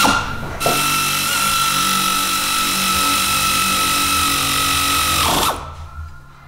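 Power ratchet spinning down a brake hose banjo bolt on a brake caliper: a steady high whir that runs for about five seconds, dips slightly in pitch as the bolt seats, then cuts off.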